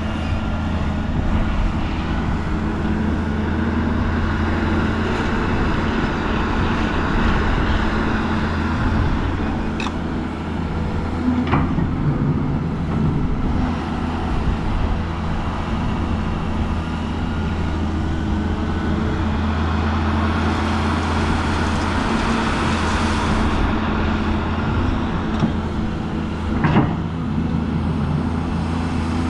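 Large diesel engine of heavy earthmoving machinery running steadily under work. Two sharp metallic clanks stand out, about 11 seconds and about 27 seconds in, and a hiss rises for a few seconds after the 20-second mark.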